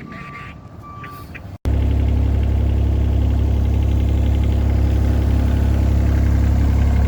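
A vehicle backup alarm beeps twice over an engine in the background. After a sudden cut, a heavy engine runs loud and steady at an even, low pitch.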